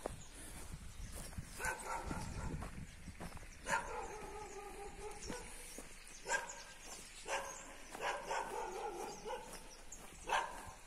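Dogs barking in about five separate bouts, each a run of barks lasting up to a second or two.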